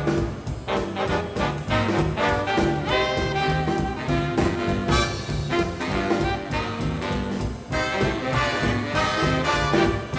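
Instrumental swing-style background music with brass and a steady beat.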